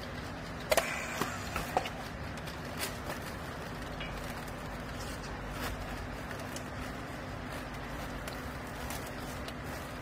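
Steady low hum of a vertical clothes baler's hydraulic power unit running while the bale is held pressed, with a few sharp clicks and knocks about a second in.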